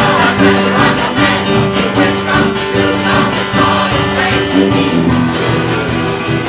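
Live music: a choir singing over a band and a fast, steady percussion beat.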